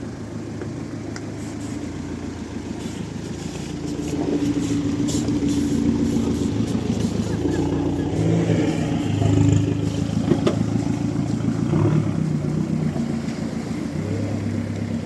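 Volkswagen Amarok's diesel engine working off-road, getting louder from about four seconds in, with scattered clicks and one sharp knock about ten seconds in.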